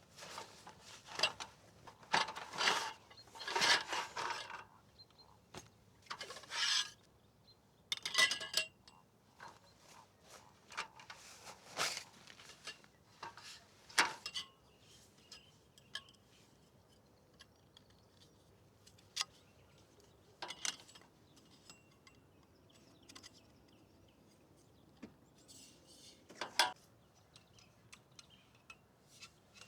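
Camp gear being handled and set up: irregular rustles, light knocks and small clinks, some in quick clusters.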